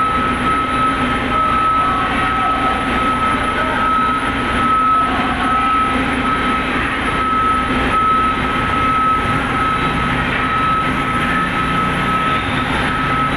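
Diesel engines of heavy equipment running loudly and steadily, with a continuous high-pitched warning tone sounding over them.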